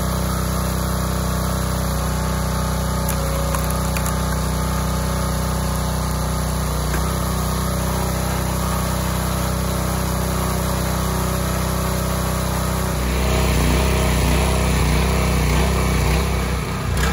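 Small gasoline engine of a hydraulic log splitter running steadily. About thirteen seconds in it grows louder and its note changes.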